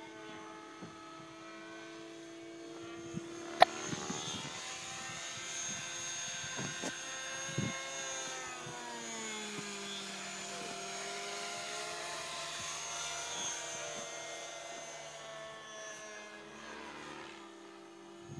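Radio-controlled model airplane flying overhead, its motor a steady buzzing drone whose pitch slides down and back up as it passes and turns. A single sharp click sounds about three and a half seconds in.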